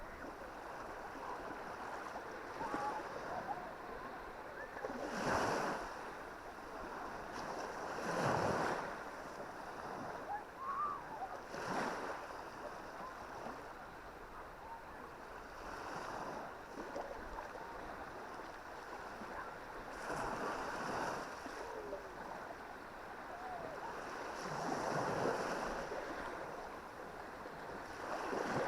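Small Baltic Sea waves breaking and washing up on a sandy beach, each wave swelling up and fading every few seconds over a steady surf hiss.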